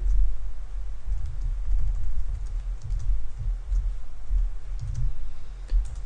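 Computer keyboard keystrokes and clicks, scattered and uneven, each with a dull low thud, over a steady low hum.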